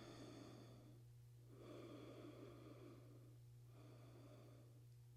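Near silence: a person's faint, slow breathing, a few long breaths in and out, over a steady low hum.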